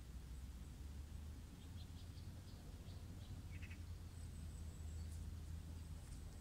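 Faint outdoor background: a steady low rumble with a few short, high chirps in the middle, like small birds calling.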